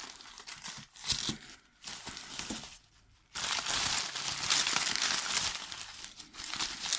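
Parcel packaging being crinkled and torn open by hand. Short rustles come first, then a brief pause about three seconds in, then a longer unbroken stretch of crinkling.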